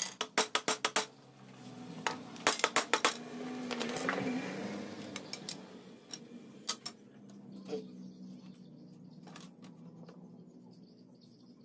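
Hammer driving nails into a wooden shelf frame: a fast run of sharp blows for about the first second, another short run of four or five blows between two and three seconds in, then a few single knocks as wooden slats are handled. A low hum swells and fades in the middle.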